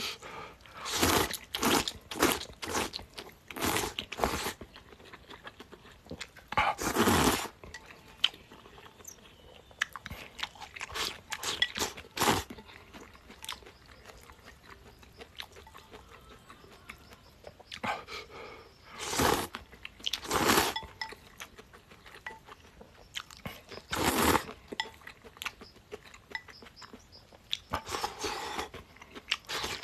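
A person eating pickled-cabbage noodles close to the microphone: chewing and crunching with many small mouth clicks, and several longer noisy draws of up to a second each.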